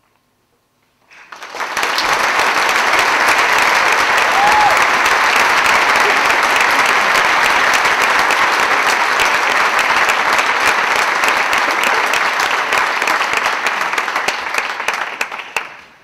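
Audience applauding at the end of a choir piece: the clapping swells in about a second in, holds steady, and dies away near the end.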